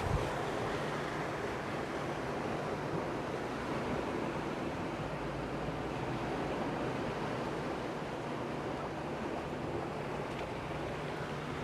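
Steady wash of sea waves with wind, and a faint low hum underneath.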